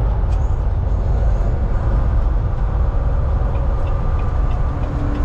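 Inside the cab of a Volvo semi-truck cruising at highway speed: a steady low rumble of engine and road noise. A faint steady hum joins in near the end.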